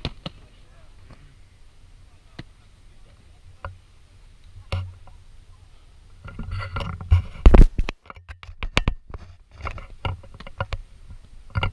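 Foam-padded boffer weapons striking padded shields and bodies: scattered sharp smacks. A louder flurry of thumps and smacks comes a little past the middle, and the sound cuts out briefly after it.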